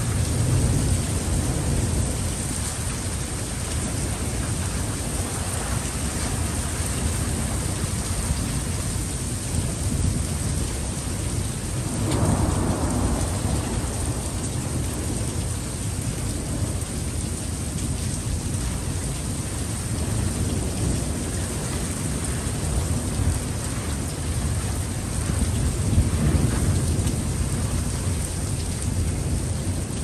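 Steady heavy rain hissing down in a winter thunderstorm, with low rolls of thunder rumbling under it that swell about twelve seconds in and again near the end.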